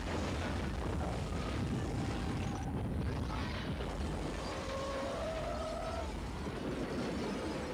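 Movie explosion sound effect: the long, heavy rumble of a street bomb blast and its debris, with a few brief higher tones rising out of it midway.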